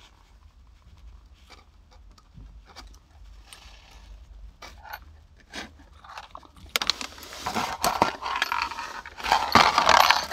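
Small metal set screws and knob parts clicking and rattling as they are handled. Scattered light clicks at first, then busier clicking and scraping from about two-thirds of the way in, loudest near the end.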